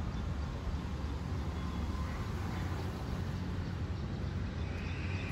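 Steady low rumble of road traffic on the flyover overhead.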